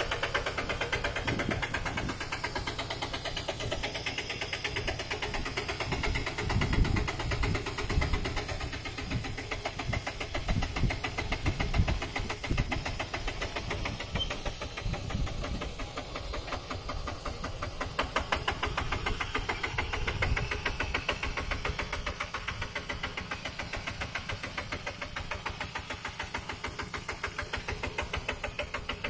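Walk-behind two-wheel tractor's single-cylinder diesel engine chugging with a fast, even beat as it pulls a loaded wooden trailer through deep mud. Heavier low thuds come and go in the middle, and again about two-thirds of the way through.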